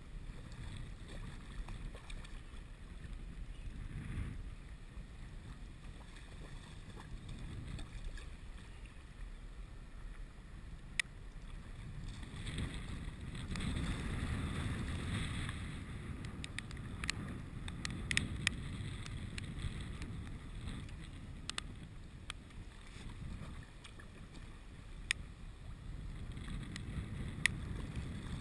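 Wind buffeting the microphone over choppy water, with a hooked bluefish splashing and thrashing at the surface, loudest from about twelve to sixteen seconds in. A few sharp clicks now and then.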